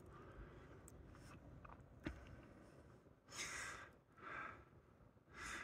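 Near silence, with a faint click about two seconds in, then three breaths close to the microphone of a hiker filming on a phone.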